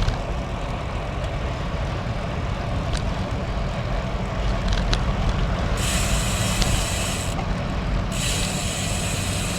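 Strong wind buffeting the camera microphone on a moving road bike: a steady low rumble. About six seconds in a high hiss joins it, breaks off briefly, then returns.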